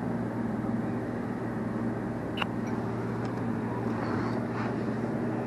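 Steady low mechanical hum at an even level, with one sharp click about two and a half seconds in.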